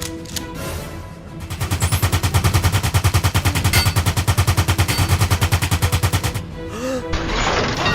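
Rapid machine-gun fire sound effect, an even stream of shots for about five seconds, over background music. It gives way to a brief sliding tone and then a burst of noise near the end.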